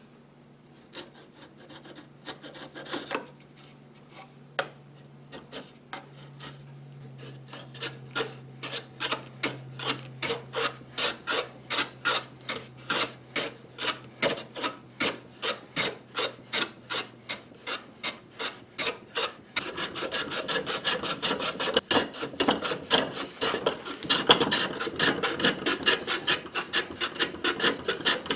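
A hand edge tool scraping and shaving the wooden head of an old brace. It starts with a few scattered scrapes, then settles into regular strokes about two a second. About two-thirds of the way through, the strokes turn louder and denser.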